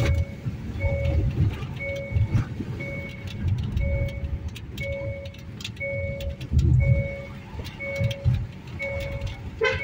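A car's electronic warning beeper sounding a short beep about once a second, steady throughout, over a low rumble, with a click near the end.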